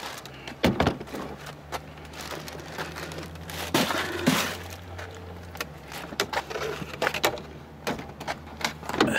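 A bag of trailer sweepings, dust and wood chips, being handled: scattered crackles, knocks and clunks, the loudest cluster a little past halfway. Under it runs a steady low hum that grows weaker about halfway through.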